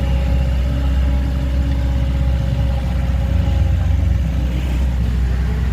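Car engine and road noise: a loud, steady low rumble.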